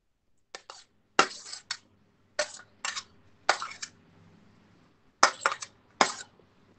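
Metal spoon scraping and clinking on a stainless steel plate while grated carrot is pushed off it: a string of short, sharp scrapes and clinks, with a pause of about a second and a half in the middle.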